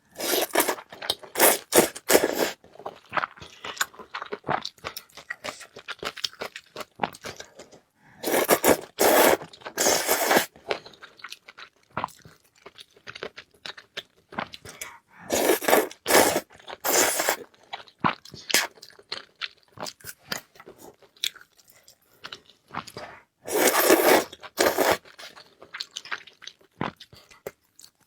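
Close-miked eating: a person taking crunchy bites and chewing, with a dense run of crunching about every seven or eight seconds and quieter, sparser chewing clicks in between.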